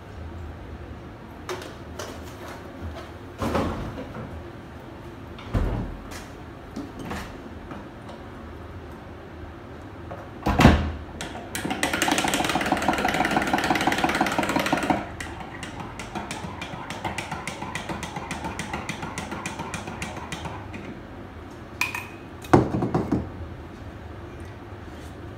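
Teaspoon stirring coffee in a mug: a few seconds of fast, loud clinking of spoon against the mug about halfway through, then lighter, even stirring. A few single knocks of things set down on the counter come before and near the end.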